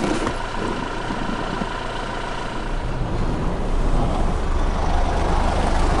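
Toyota 4x4's engine and road noise heard inside the cab, a steady low hum that grows louder about two and a half seconds in.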